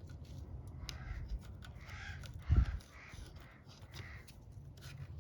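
Crows cawing several times, with sharp clicks throughout and one loud thump about halfway through.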